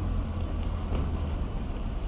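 Steady low rumble of street traffic, a car going by, with no bark standing out.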